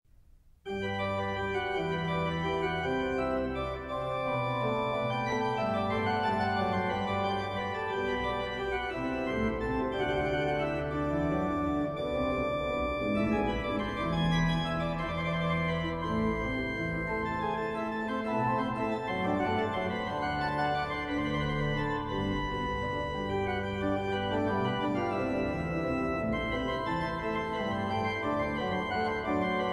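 Organ music: slow, sustained chords that change every second or two, starting about half a second in.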